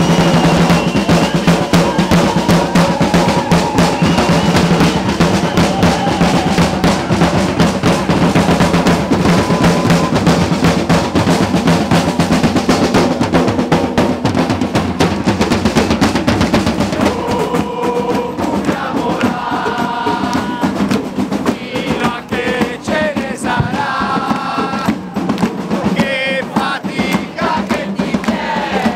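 Music driven by fast snare and bass drum beats. About two-thirds of the way in the drumming thins out and voices come in over it.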